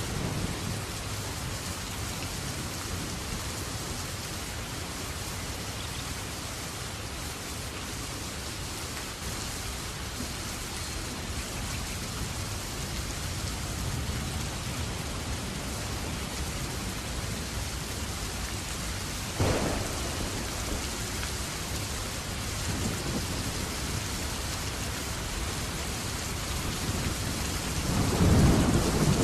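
Rain falling steadily. About two-thirds of the way through there is one sudden sharp knock, and near the end a louder low rumble swells up.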